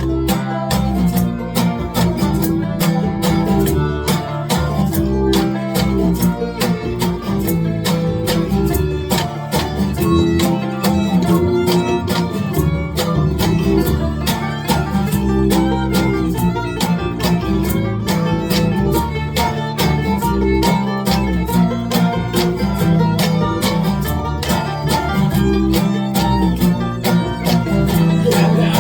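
Instrumental break of a folk song played live: strummed guitar with a bowed fiddle line over it, in a steady, driving rhythm.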